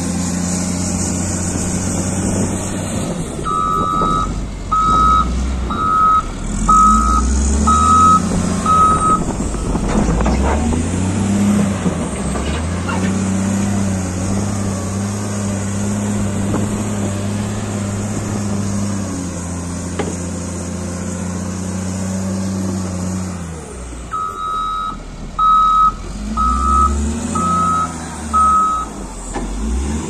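Caterpillar 950 wheel loader's diesel engine running and revving up and down as the machine works, with its reversing alarm beeping about once a second in two runs: six beeps a few seconds in and five near the end.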